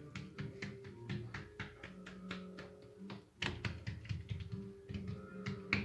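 Background music with held tones and a quick, steady tapping rhythm.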